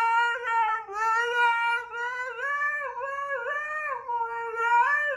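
Siberian husky howling: one long, pitched howl that wavers up and down in small rises and dips.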